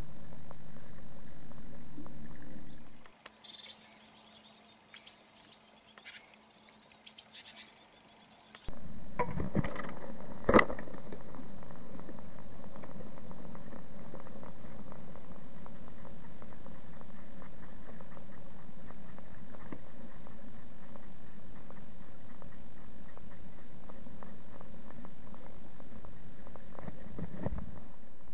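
Great tit nestlings begging inside the nest box: a continuous high-pitched chirring chatter that fades to faint, scattered calls for a few seconds and then comes back, with a sharp knock about ten seconds in.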